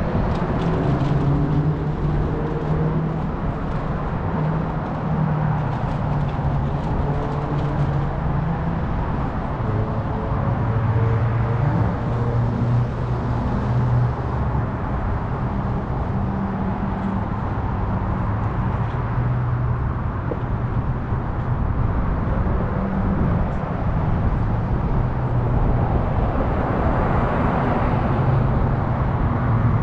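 Car driving, heard from inside: a steady engine hum that shifts up and down in pitch, over road rumble.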